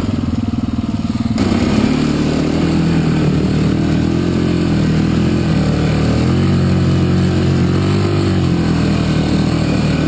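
Trail motorcycle engine running under way, its pitch rising and falling with the throttle. A steady rushing hiss joins it about a second and a half in.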